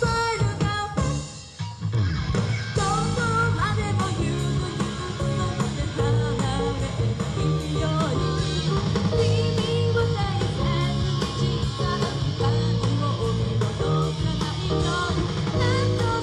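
Live rock band playing with singing: electric guitar, bass and drum kit with steady cymbal strokes. There is a brief dip about one and a half seconds in before the full band comes back in.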